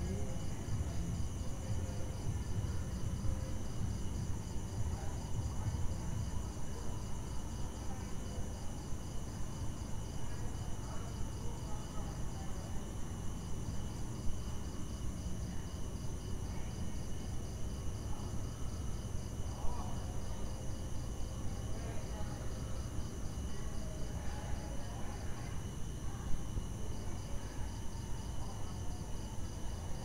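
Crickets and other night insects chirping steadily, one high, evenly pulsing trill over several held tones, above a low rumble. A few sharp ticks stand out now and then.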